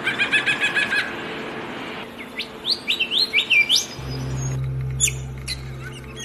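Wild birds calling: a rapid series of short chirps in the first second, then a run of quick rising whistled notes, then a few sharp high chirps, over a low steady hum.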